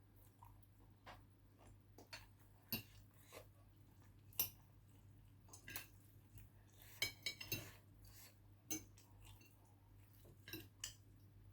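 Faint, scattered clinks of eating utensils against a plate or bowl while eating, with a quick run of clinks about seven seconds in, over a low steady hum.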